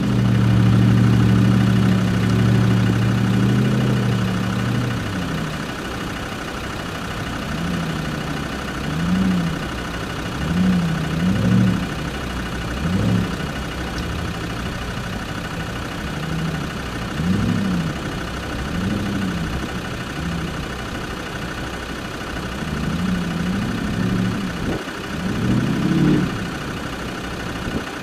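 Land Rover Discovery 2's V8 engine held at steady revs for about five seconds, then revved up and dropped back again and again, in short bursts, as the truck works through deep mud ruts.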